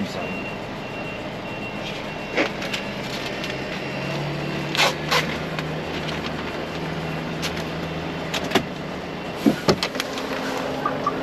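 Volvo FH 540 truck engine running steadily, with scattered short clicks and knocks; the sharpest come about halfway through and again near the end.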